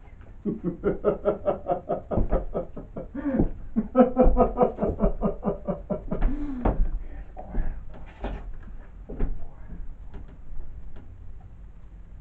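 A man's theatrical laugh: two long runs of rapid 'ha-ha' pulses over the first seven seconds, tailing off into fainter, scattered pulses.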